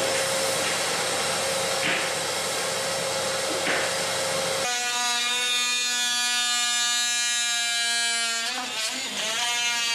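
Canister vacuum cleaner running steadily as the floor is vacuumed. About halfway through it gives way abruptly to a cordless oscillating multi-tool buzzing at a steady high pitch while cutting away wood in a hard-to-reach spot at the base of a wall. Near the end the tool's pitch wavers as it works.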